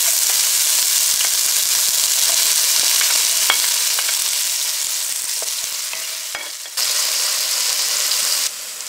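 Chopped red onions sizzling in hot canola oil in an aluminium pot, with a wooden spoon stirring them and clicking against the metal now and then. The sizzle fades, jumps back abruptly about two-thirds of the way in, and drops sharply near the end.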